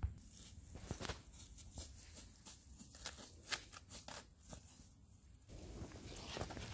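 Light, irregular crackling of footsteps on dry leaves and twigs. About five and a half seconds in it gives way to a softer, even rustle.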